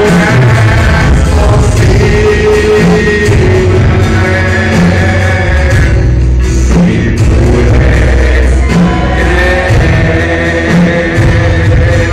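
Live church praise band playing a Spanish-language worship song with guitar and a steady beat, with singing over it.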